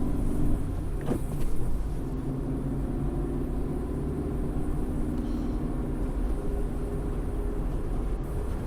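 Steady low rumble of a car running, heard from inside the cabin, with a faint hum and a single click about a second in.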